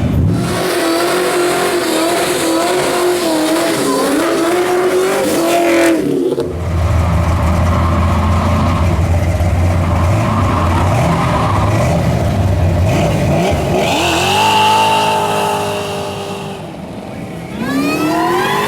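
Loud performance-car engines in several short clips: a wavering engine note, then a steady low rumble, then engines revving up with rising pitch about two-thirds of the way through and again near the end.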